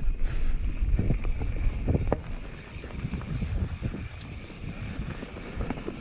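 Mountain bike riding fast down a dirt singletrack: wind buffeting the microphone over the rumble of tyres on dirt, with knocks and rattles from the bike over bumps, the sharpest about one and two seconds in.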